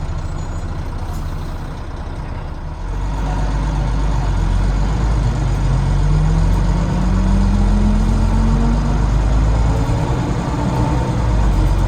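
Volvo B9TL double-decker bus with a Volvo D9B engine ticking over, then pulling away under load about three seconds in. As it accelerates a whine rises in pitch for a few seconds. This is the unexplained noise the bus makes on each acceleration, which the uploader wonders may come from the gearbox, cooling fan or axles.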